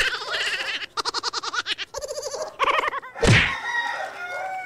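Chickens calling: a run of loud pitched calls, rapidly pulsed in the middle, with a loud falling cry a little past three seconds in, typical of a rooster crowing and hens clucking.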